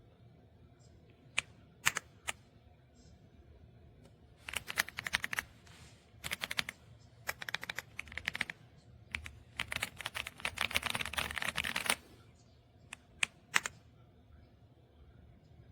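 Typing on an EPOMAKER x Aula F75 gasket-mount mechanical keyboard. A few single key presses come first, then several bursts of fast typing, the longest lasting about three seconds, and three more single presses near the end.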